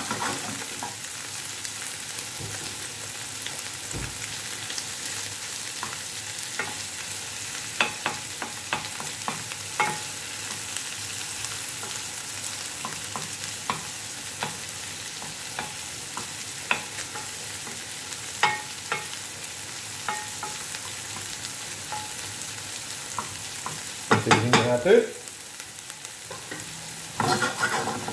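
Kefta meatballs with diced onion and garlic sizzling steadily in olive oil in a non-stick sauté pan, browning. A wooden spatula makes scattered ticks and scrapes against the pan, with two louder bouts of stirring near the end.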